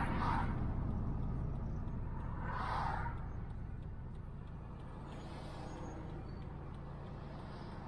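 Dodge Viper GTS V10 engine and tyre rumble heard from inside the cabin, the car gently slowing as the sound fades away. Two short whooshes cut through, one at the start and one about three seconds in.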